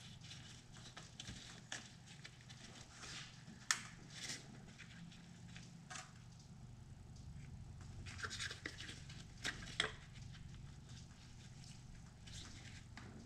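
Faint rustling, scratching and sharp plastic clicks from gloved hands working spark plug wires and their boots on the engine, over a low steady hum. The loudest snap comes about four seconds in, and two more come close together near the end.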